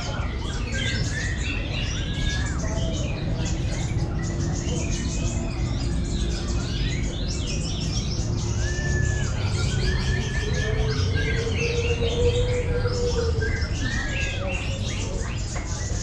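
Many caged kolibri ninja (sunbirds) singing at once in a song contest: a dense, unbroken chatter of quick high chirps and short whistled phrases, over a steady low rumble.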